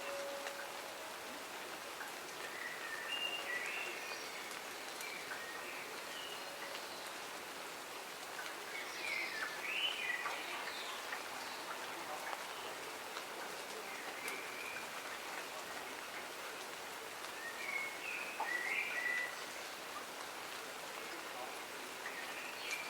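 Steady rain falling, with birds calling in short chirping phrases three times, about three seconds in, around ten seconds in and near the end.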